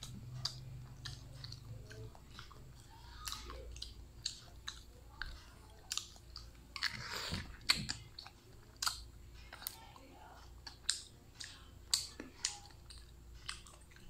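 Close-up mouth sounds of a person eating balut (boiled duck egg): wet chewing with many short sharp clicks and smacks, and a longer slurp about seven seconds in as the egg is sucked from the shell.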